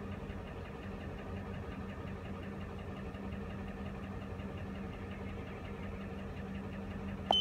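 The 5.4-litre V8 of a 2005 Ford F-150 idling steadily, heard from inside the cab. Near the end a handheld OBD2 scanner gives one short beep as a key is pressed.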